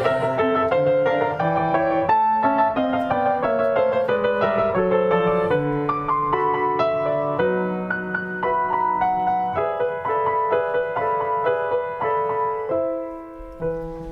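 Solo piano interlude in a choral Christmas song, a flowing run of struck notes that thins out and softens near the end.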